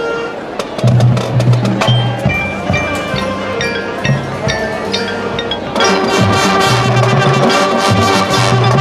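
Marching band playing: mallet and hand percussion with sharp clicks over sustained low notes, the fuller band coming in louder about six seconds in.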